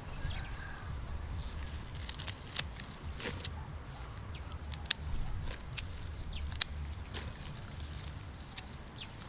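Garden scissors snipping through green onion stalks: a string of sharp snips, the loudest about two and a half, five and six and a half seconds in, with softer ones between, over a low steady rumble.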